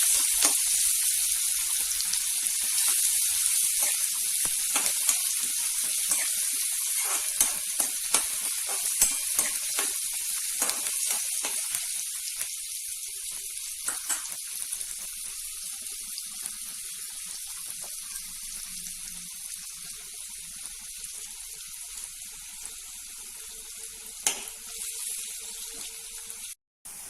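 Chopped onion frying in plenty of hot oil in a kadhai, being browned until reddish: a steady high sizzle that slowly grows quieter, with scattered light clicks. The sound cuts out for a moment near the end.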